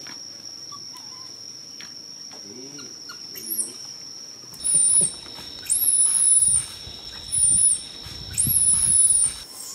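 Infant long-tailed macaque screaming: four shrill, very high-pitched cries, each half a second to a second long, starting about halfway in. A steady high whine runs underneath.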